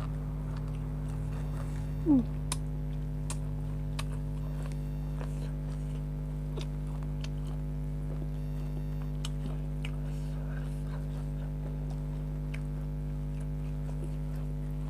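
Close-up eating sounds of a person chewing grilled chicken: scattered small clicks and smacks over a steady electrical hum. About two seconds in, one brief loud falling squeak.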